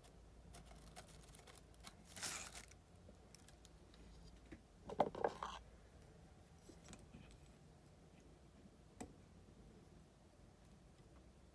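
Quiet handling of fly-tying tools and materials at the bench: scattered small clicks, a brief rustle about two seconds in, a louder cluster of clicks about five seconds in and a single click near nine seconds.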